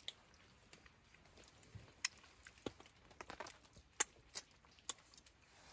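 Faint, scattered short clicks and ticks, about a dozen at uneven spacing, against a quiet background.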